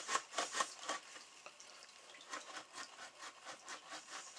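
Tanned coyote hide being drawn back and forth over a wooden beam to break it, skin rubbing against wood in quick scratchy strokes. This stretches the dried fibres to soften the hide. The strokes are loudest in the first second, then settle into a steadier rhythm of about four a second.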